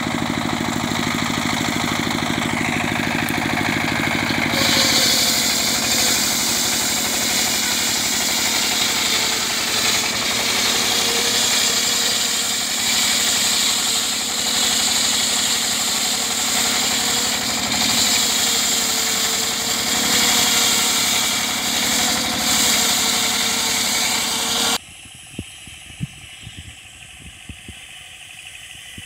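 Engine-driven circular sawmill ripping a log of medang wood: the engine runs steadily under load, and the blade's high cutting noise comes in louder about five seconds in. The loud sawing cuts off suddenly near the end, leaving only a few faint knocks.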